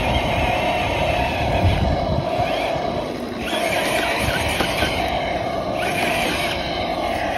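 Simulated V8 engine sound from a 1/10 scale RC crawler's electronic sound module (ESS), running steadily under throttle as the Traxxas TRX-4 crawls up a slope. It dips briefly about three seconds in, then picks up again.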